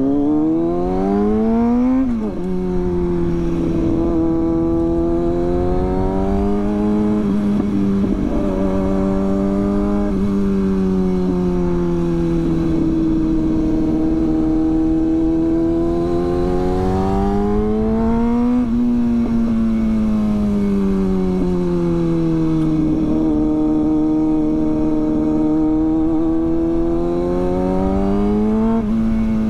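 Kawasaki Ninja sport bike engine on the move, its pitch rising and falling with the throttle: a sharp drop like an upshift about two seconds in, a steady cruise, a climb and a slow easing off past the middle, then picking up again near the end. A low wind rumble lies under it.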